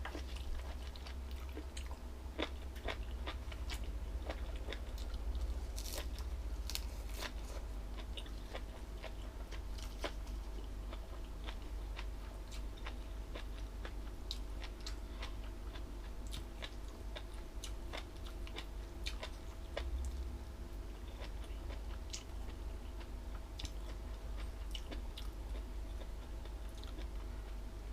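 Close-up chewing and crunching of jellyfish salad, with many small crisp crunches and mouth clicks at an irregular pace. A steady low hum runs underneath.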